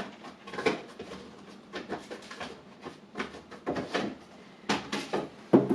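Cardboard product box being handled and a tight-fitting lid worked loose, with a string of irregular scrapes, rubs and light knocks.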